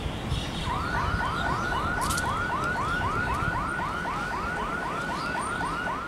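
A siren-like electronic warning tone, a short upward sweep repeated evenly about four times a second, starting about a second in, over a steady low rumble.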